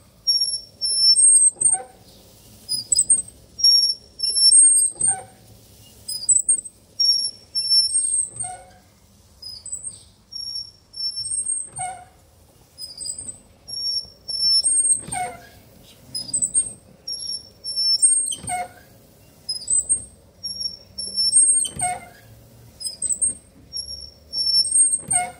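Windscreen wiper blades of a 1970 Chevrolet C10 squeaking as they drag back and forth across the glass, with short high-pitched squeaks every second or so and a knock about every three seconds over a faint steady hum. The blades are rubbing on dry glass because they had to be left resting on the windscreen.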